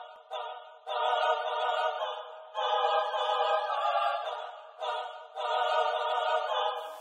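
Intro of a hip hop beat: a choir-like vocal sample holding chords in several phrases. It is filtered thin, with no bass or drums.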